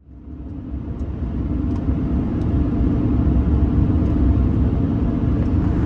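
A road vehicle driving: a steady low engine and road rumble that fades in over the first second or so, then holds even.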